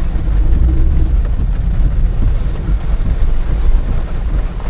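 Inside a moving car in heavy rain: a steady low road-and-engine rumble with an even hiss of rain and wet tyres.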